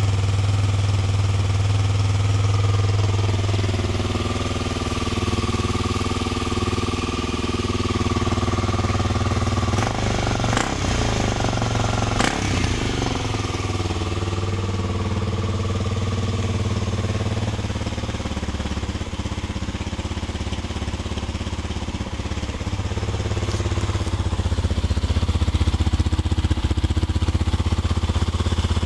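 Suzuki SB250's single-cylinder four-stroke engine idling steadily through a K-Factory full exhaust system, with a few small shifts in its beat. A couple of sharp clicks about ten to twelve seconds in.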